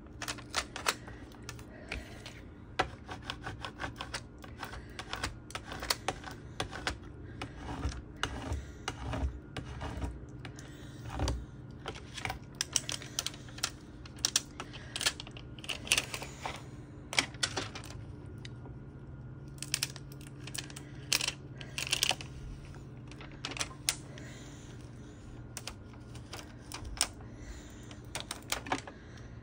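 Hands working vinyl decal pieces and transfer tape onto a hard clear acrylic water bottle: irregular clusters of small clicks, taps and crinkles from fingernails, tape and plastic. A faint steady hum runs underneath.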